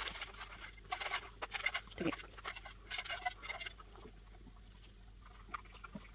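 Two dachshunds eating from stainless steel bowls on a tiled floor: quick clicks, crunches and bowl clinks, busy for about four seconds, then thinning to a few faint ticks.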